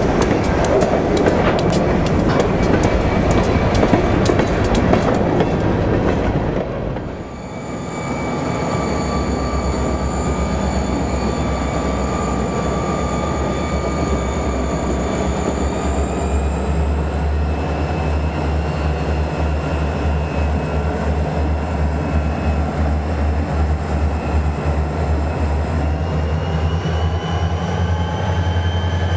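For about the first seven seconds, HO scale freight cars roll past, clicking over the rail joints. Then EMD SD40 diesel locomotives take over with a low throbbing engine and a turbocharger whine. The whine steps up in pitch twice as they throttle up to track speed.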